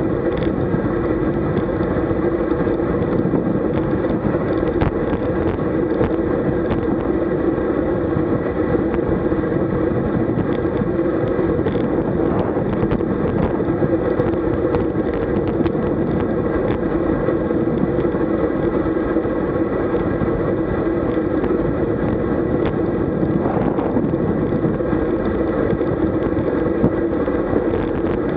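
Steady rush of wind and tyre noise from a road bicycle riding at about 40 km/h, picked up by a bike-mounted camera, with a steady low hum under it.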